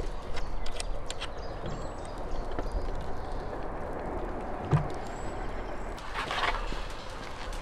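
Outdoor yard background noise with scattered clicks, a single knock about two-thirds of the way through and a short rustle near the end, over faint high bird chirps.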